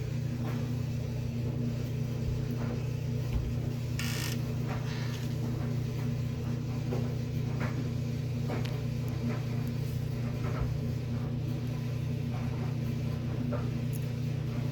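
A steady low mechanical hum, with faint short ticks scattered over it.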